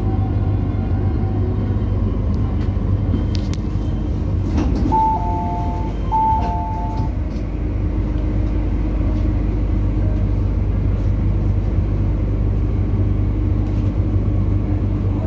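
MTR South Island Line S-Train running steadily from a tunnel into a station, with a low rumble and hum. A clear two-note falling chime sounds twice, about five and six seconds in.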